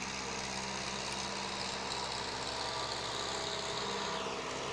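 Ford 6610 tractor's four-cylinder diesel engine running steadily, with a high whine that drops in pitch near the end.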